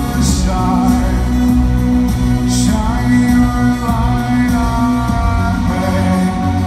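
Live electronic band music played loud through a concert PA: a male lead vocal singing over sustained synthesizer chords and heavy bass.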